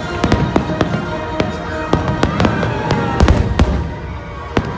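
Aerial fireworks shells bursting in rapid, irregular succession, sharp bangs and crackles with a dense, louder cluster of bangs a little past three seconds in.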